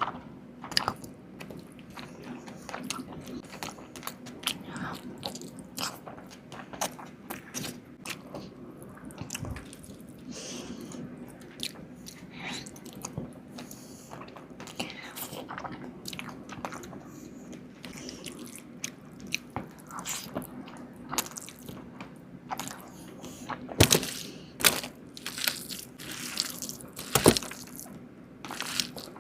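Close-up eating sounds of a whole fish curry: irregular biting, chewing and crunching with wet mouth clicks, over a low steady hum. Two louder sharp clicks stand out near the end.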